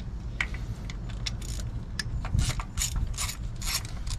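Hand ratchet with a 10 mm socket clicking in short runs, roughly two or three a second, as the thermostat housing bolts are turned out.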